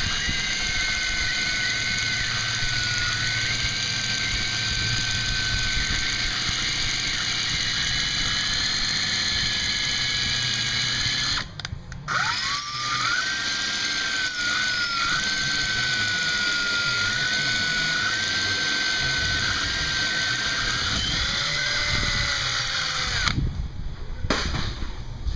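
Cordless drill boring a hole through a fibreglass boat deck, its bit turned backwards to start through the gel coat without chipping it. The motor whines steadily, stops briefly about halfway, spins back up, and stops again near the end.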